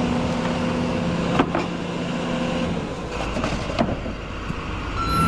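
Diesel engine of heavy construction equipment running steadily, with two sharp metallic knocks, one about a second and a half in and one near four seconds. A back-up alarm tone starts just at the end.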